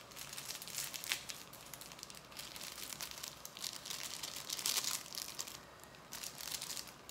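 Plastic instant-noodle seasoning sachets crinkling and tearing as they are handled and squeezed out, in irregular bursts of rustling.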